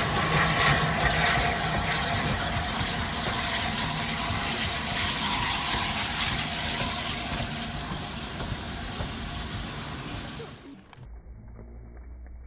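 Steam locomotive 60532 Blue Peter, a Peppercorn A2 Pacific, passing with its train: a loud, steady hiss and rumble of steam and rolling coaches that slowly fades as the train moves away. Near the end it breaks off abruptly into a faint low rumble.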